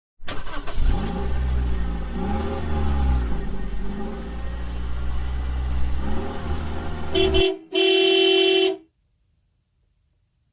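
A car engine revving, its pitch rising and falling several times. Then a short horn toot and a longer steady horn honk of about a second, which cuts off suddenly.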